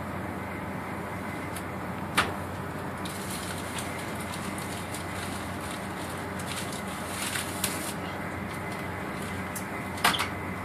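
Steady running noise inside a high-speed train carriage in motion, with a sharp click about two seconds in and a double click near the end.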